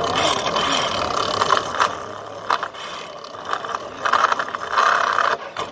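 Tornado lateral reinstatement cutter spinning inside a lined PVC pipe, clattering and grinding in irregular bursts as it breaks up the pipe liner.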